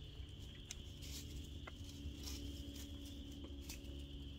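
Faint outdoor ambience: a steady low hum and a thin high steady tone, with a few scattered faint ticks.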